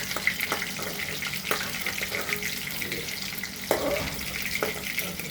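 Battered chicken pieces deep-frying in hot oil in a kadhai, a steady crackling sizzle. A couple of sharper knocks come near the end, about four seconds in.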